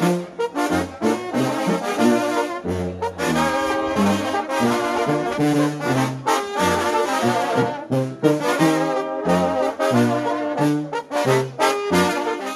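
Mexican banda brass band playing a tune as it marches, a sousaphone carrying a bass line of held, changing notes under trumpets and trombones.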